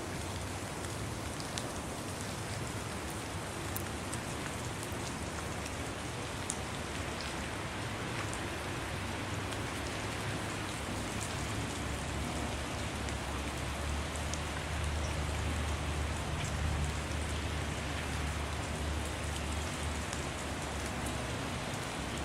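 Wet snow falling and dripping on surfaces: a steady hiss with scattered small ticks. A low rumble underneath swells from about 14 to 20 seconds in.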